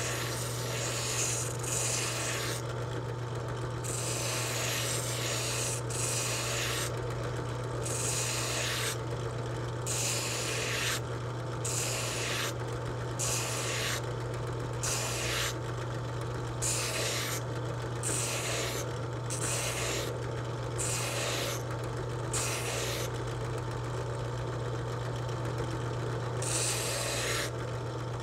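Drill-driven sanding drum running with a steady motor hum while a sycamore lure blank is pressed against it in short passes, a rough sanding hiss coming and going about every second or two as the wood is shaped.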